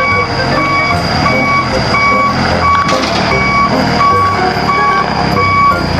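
Truck reversing alarm beeping in an even rhythm over a steady low rumble.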